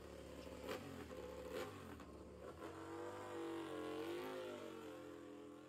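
Aprilia MotoGP bike's V4 engine running at idle, its pitch wavering up and down in the second half with small throttle changes. A couple of faint knocks in the first two seconds.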